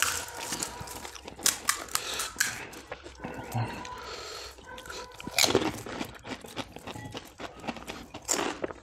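Crisp pani puri shells cracking and crunching as they are bitten and chewed, in a run of sharp crackles with louder crunches about five and a half seconds in and near the end.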